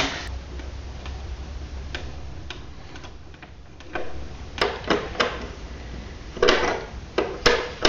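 Hand work on a small snowmobile engine: scattered light clicks and ticks of a screwdriver and small metal parts, with a few louder clusters of clattering and scraping about four seconds in and again near the end.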